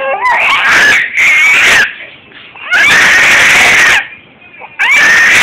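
A baby's loud, high-pitched shrieks: four long screeches of about a second each with short gaps between them, the last still going at the end.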